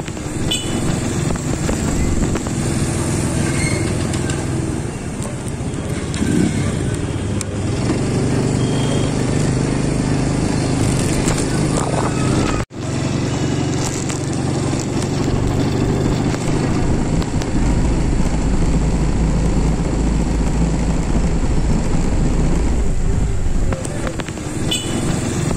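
Street traffic with motorcycle engines running and passing close by, along with people's voices. The sound drops out for a moment about halfway through.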